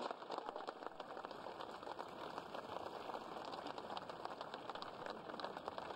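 Crowd applauding, a steady dense clapping.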